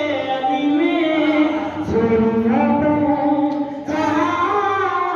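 A single voice chanting religious verse in a sung style, holding long notes whose pitch steps up and down, with a short break near the end.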